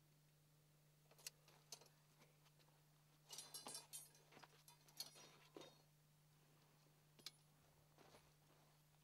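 Near silence with faint scattered clicks and clinks from tent poles and guy lines being handled while a ground tent is pitched, busiest about three to four seconds in, over a faint steady hum.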